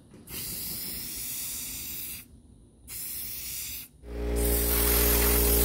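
Rust-Oleum aerosol spray-paint can hissing in short bursts, one of about two seconds and then one of about a second. About four seconds in, a louder steady hum starts.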